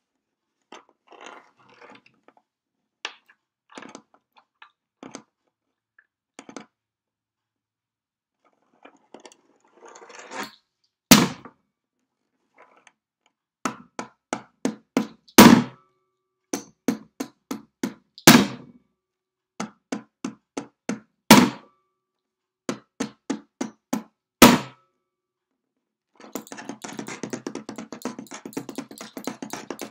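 Fingers in metal claw rings tapping and knocking on a wooden tabletop. Scattered light taps come first. Then quick runs of taps are broken by five loud thunks about three seconds apart, and near the end a fast, continuous patter of taps begins.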